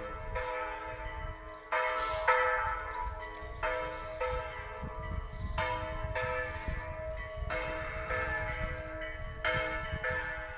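Church bells ringing, struck again every second or two, each stroke's tones ringing on and overlapping the next.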